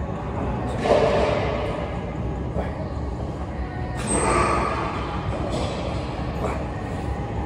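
A man breathing out hard twice, about three seconds apart, with the effort of heavy single-arm dumbbell rows, over a steady low hum.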